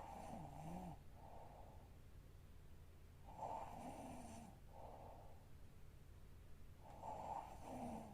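A sleeping young woman snoring faintly, three snores about three and a half seconds apart, each followed by a quieter breath.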